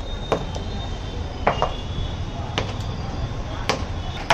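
Kitchen knife knocking on a cutting board during sandwich making: about five sharp, irregularly spaced knocks over a steady low background hum.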